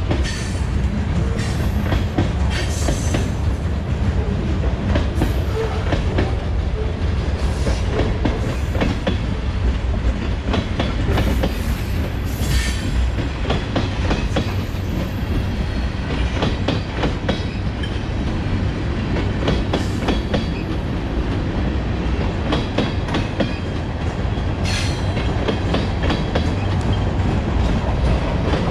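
Freight train cars rolling past with a steady rumble, wheels clicking over rail joints, and a few brief high-pitched wheel squeals.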